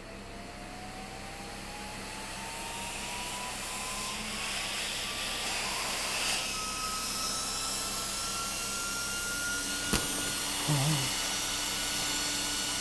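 A small high-speed 12-volt computer fan running flat out, blowing air into a sealed plastic trash bag: a steady whir with a thin whine that rises slowly in pitch and grows louder as the bag fills. A sharp click about ten seconds in.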